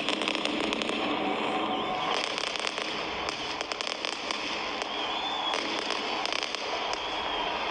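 Fireworks going off: a dense, unbroken crackle of many quick sharp pops, with a faint high whistle about five seconds in.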